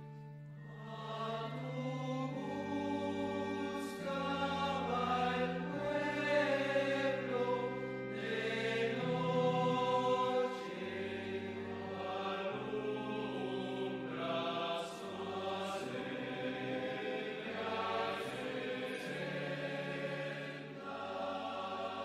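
Slow sacred hymn sung by voices over held instrumental chords, the kind sung during the communion rite of a Catholic Mass.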